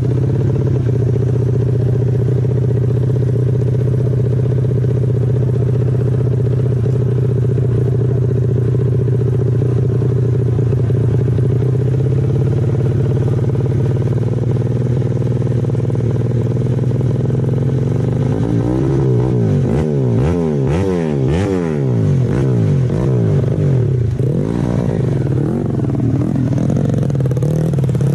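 Grasstrack dirt-bike engine running at a steady idle, then revved up and down repeatedly from about 18 seconds in.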